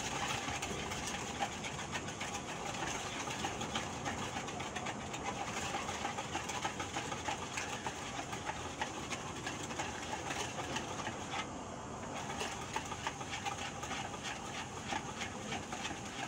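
A utensil stirring brownie batter in a bowl: rapid, continuous clattering and scraping against the bowl, with a brief pause about two-thirds of the way through.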